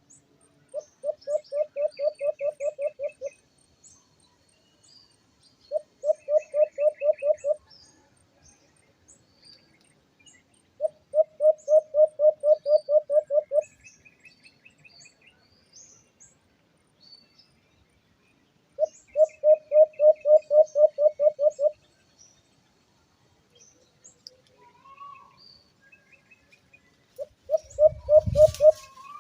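A bird calling in repeated series of rapid low pulsed notes, about four or five a second, each series lasting two to three seconds with pauses between, while smaller birds chirp faintly. Low thuds come in near the end.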